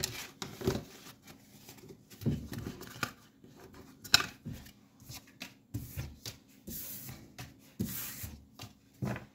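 Tarot cards being gathered off a wooden tabletop and shuffled by hand: irregular rustling and tapping of the cards, the sharpest tap about four seconds in.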